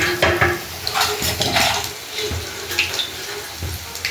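Battered snacks deep-frying in hot oil in a kadai, sizzling with irregular crackles and spits.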